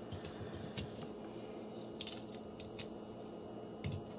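A few sharp, small clicks of hard plastic toy parts being handled and pulled apart: a transforming robot figure's gun being separated into its pieces.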